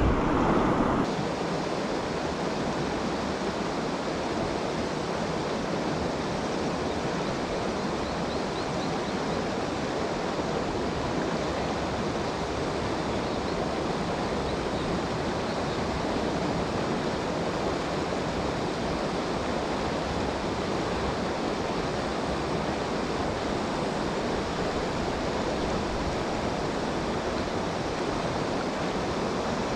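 Steady rush of river water flowing over rocks, unchanging throughout.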